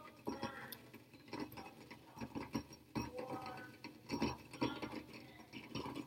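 Faint room sound: scattered light clicks and ticks at an irregular pace, with a low murmur of voices in the background.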